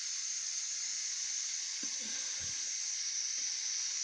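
Mutton pepper chops sizzling steadily in a pan as the liquid cooks off and the oil begins to separate, the last stage before the dish is taken off the heat.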